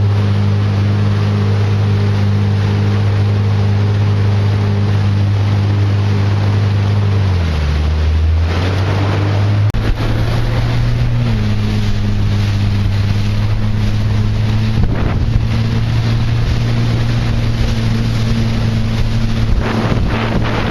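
Boat engine droning steadily under the rush of water spray and wind buffeting the microphone; the engine note drops about seven seconds in and climbs back up a few seconds later.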